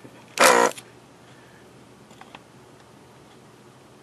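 Hakko 808 desoldering gun's built-in vacuum pump buzzing once, briefly, about half a second in, as it sucks molten solder off a heated pin.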